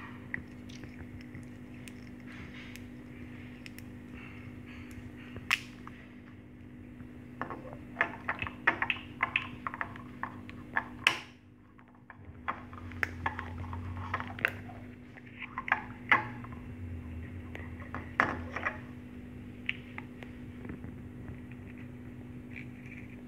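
A series of sharp clicks and light clinks, as of small hard objects being handled, over a steady low hum.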